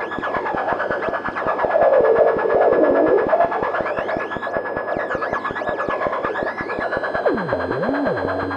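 Negistor cracklebox noise generator run through a dual auto-filter: a dense, rapid crackling pulse train with a steady high whistle and wavering filter sweeps. Near the end a pitched tone swoops down and back up, then settles into a held drone.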